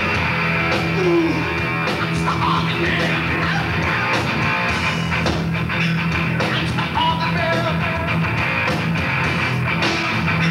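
Live heavy rock band playing loud electric guitars, bass and drums, with a singer's voice over them.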